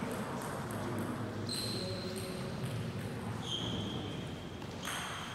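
Table tennis ball knocking against the table and bats, a handful of sharp clicks roughly a second apart, each followed by a high ring. A low murmur of the sports hall lies beneath.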